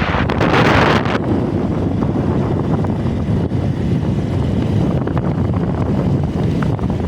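Wind buffeting the microphone: a loud hiss that cuts off suddenly about a second in, then a steady low rumble.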